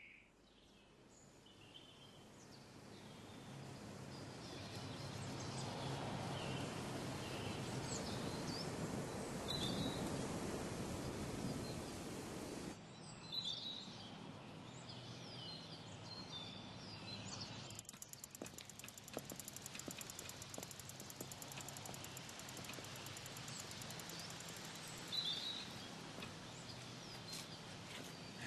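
Countryside ambience with birds chirping and calling now and then. A rushing noise swells over the first dozen seconds and then cuts off suddenly. After that comes a quieter, steadier outdoor background with more short chirps.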